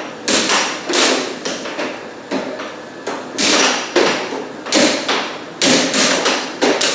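Air hockey puck and mallets clacking in a rally: about a dozen sharp knocks at uneven intervals as the puck is struck and bounces off the table rails.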